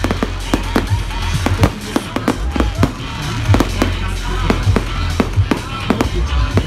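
Fireworks going off in quick succession: a rapid string of sharp bangs and crackles, several a second, from aerial shells and rockets. Music plays underneath.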